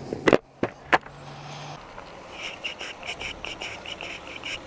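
Motorcycle running at low speed while rolling across a parking lot, with a couple of sharp knocks in the first second. In the second half a quick, even high-pitched ticking, about five a second, comes in over the engine.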